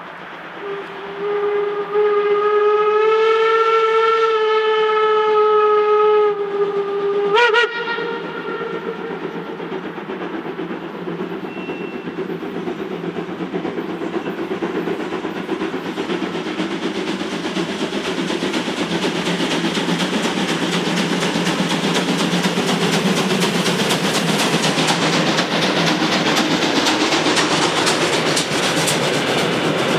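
Steam whistle of class 64 tank locomotive 64 518: one long blast of about six seconds, then a brief toot. The train then runs on, its running noise slowly growing louder as it approaches.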